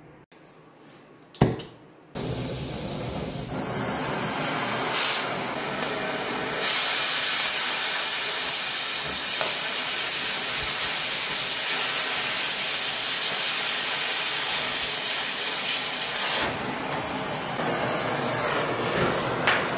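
Oxy-fuel cutting torch: a sharp pop about a second and a half in, then the steady hiss of the flame. The hiss grows louder about six seconds in as the torch cuts through the steel plate, then drops back to a softer flame hiss near the end.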